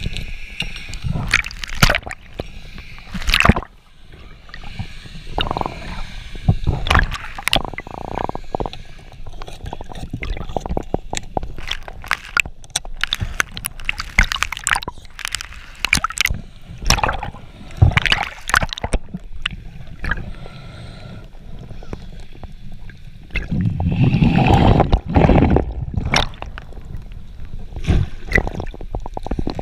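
Water gurgling and sloshing around a freediver's underwater camera, with many sharp clicks and knocks throughout and a loud stretch of splashing and bubbling about three-quarters of the way through.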